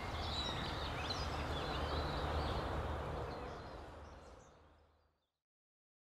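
Forest ambience: scattered bird chirps over a steady background noise, fading out to silence about four to five seconds in.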